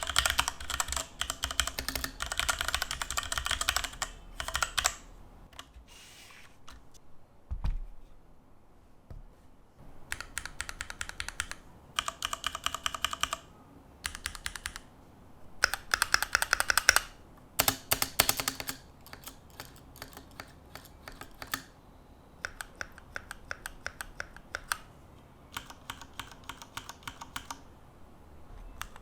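Typing on a Keychron Q2 aluminium-cased mechanical keyboard: runs of rapid keystroke clacks, broken by pauses of a second or two. A single dull low thump comes about eight seconds in.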